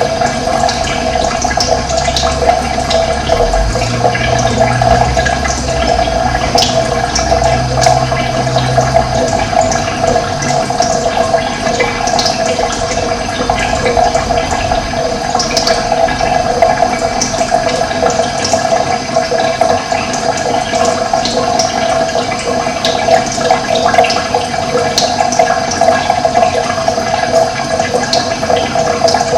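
Steady rush of running water, with birds chirping in short high calls throughout. A low hum sits underneath for the first ten seconds or so.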